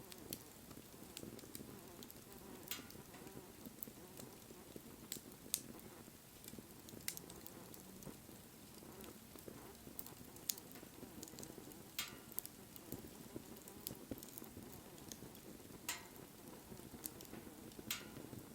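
Wood fire burning: a faint steady rush of flame with sharp crackles and pops from the burning wood every second or two.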